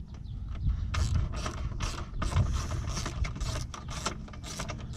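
Hand ratchet wrench clicking in quick short runs on a headlight mounting bolt, starting about a second in.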